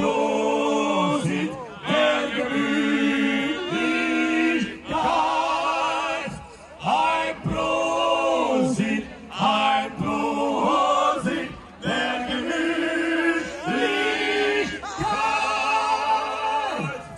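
Men singing a German schlager tune through the stage PA in a chant-like, choir-like way, phrase after phrase with short breaks between. Little instrumental backing can be heard under the voices.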